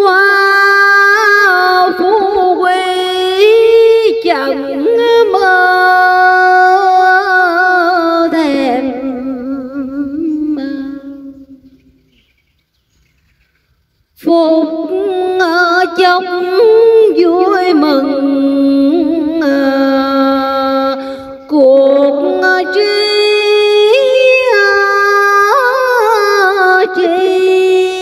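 A woman's voice chanting Vietnamese Hòa Hảo Buddhist verse in slow, drawn-out sung phrases with held, wavering notes. The voice fades out about ten seconds in and resumes after a pause of about two seconds.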